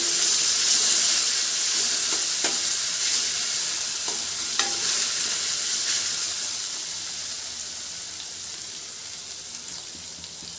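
Green chilli, garlic and coriander paste with mustard seeds and curry leaves sizzling in hot oil in a steel kadhai. A spoon stirs and scrapes against the steel, giving a few sharp clinks in the first half, and the sizzle fades gradually toward the end.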